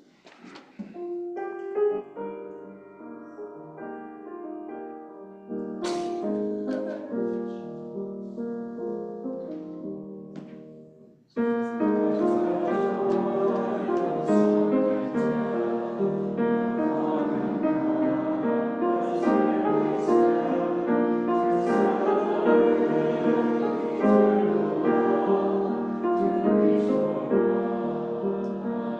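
Piano playing the introduction of a congregational hymn; about eleven seconds in, the music grows suddenly louder and fuller as the congregation comes in singing the hymn with piano accompaniment.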